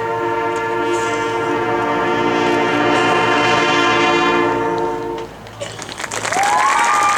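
Marching band brass holding a long final chord that cuts off about five seconds in, followed by audience applause with whistles.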